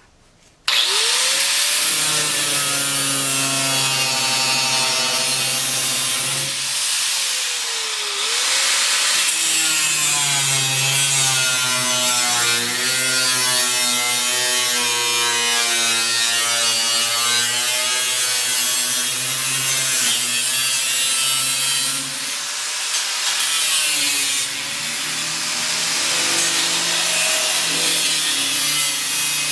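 Power cutting tool, most likely an angle grinder, cutting through the sheet steel of a truck bed. It starts about a second in, and its motor pitch sags and recovers as the wheel loads up in the cut, with brief lets-up along the way.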